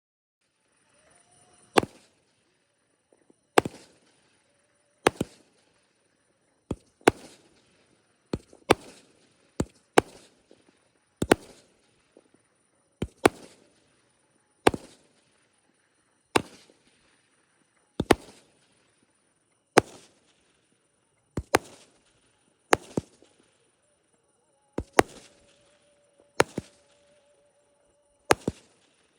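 Repeating aerial fireworks firing shot after shot: a sharp bang roughly every one and a half to two seconds, some coming in quick pairs.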